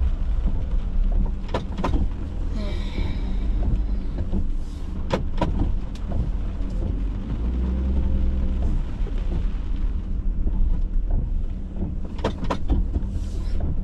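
Outdoor rumble of heavy rain, wind on the microphone and car traffic at a gas station forecourt, steady throughout, with a few scattered sharp taps.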